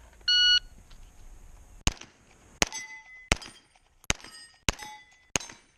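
A shot timer beeps once, then a Glock pistol fires six shots about two-thirds of a second apart, and the steel plate targets ring after the hits.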